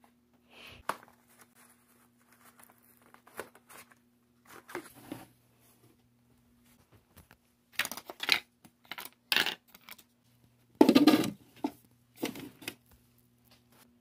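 Art supplies and their packaging being handled: irregular rustling, crinkling and light clatter, with the loudest burst about three-quarters of the way through.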